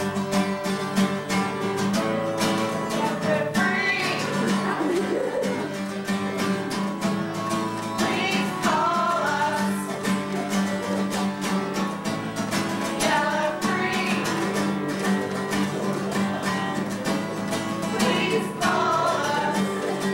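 Acoustic guitar strummed steadily, with a voice singing a phrase every four to five seconds.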